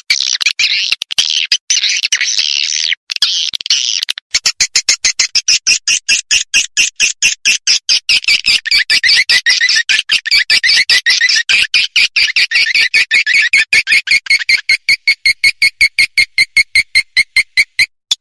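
Recorded swiftlet calls played as a swiftlet lure sound, the kind used to draw swiftlets into a nesting house. It opens with dense twittering, then after a brief break becomes a rapid, even run of short chirps, several a second, which drop somewhat in pitch about halfway through.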